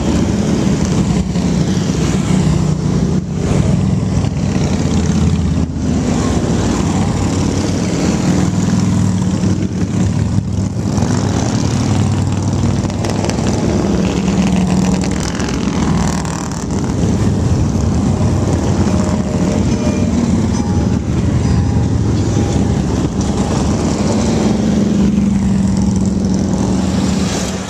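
A procession of cruiser motorcycles riding past one after another, their engines making a continuous low drone that swells and dips as each bike or group goes by. Near the end the last motorcycle passes, followed by a pickup and cars.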